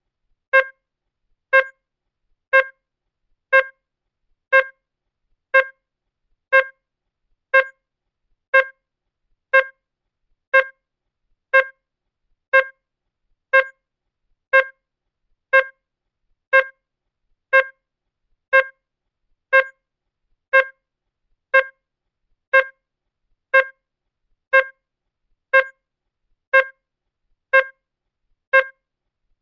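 Digital clock ticking: one short, pitched electronic tick every second, evenly spaced.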